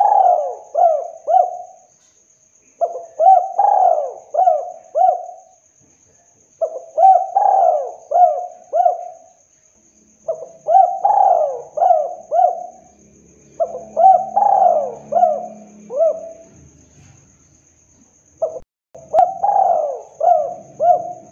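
Spotted dove (tekukur) cooing. Each phrase is about five coos, the first rising and falling, the rest shorter, and a new phrase begins every three to four seconds.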